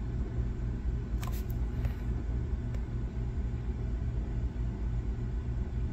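Steady low background rumble, with one faint click about a second in.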